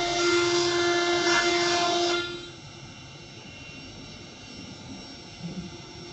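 CNC router spindle whining at a steady high pitch while its bit cuts into a wooden door panel, with a hiss of cutting. About two seconds in the loud cutting sound drops off sharply, leaving a quieter steady machine hum.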